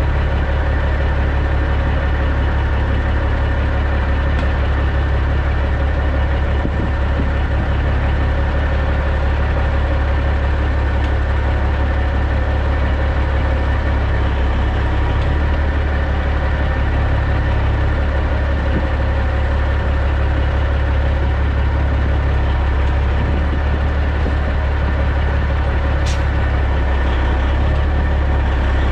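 The Caterpillar C15 diesel engine of a 2006 Peterbilt 379 running steadily near idle as the truck backs slowly, heard close to its chrome exhaust stack. A single short click sounds near the end.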